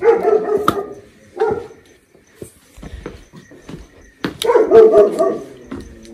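A dog barking in bouts: a run of barks at the start, a single short bark about a second and a half in, and a louder run of barks a little after four seconds in.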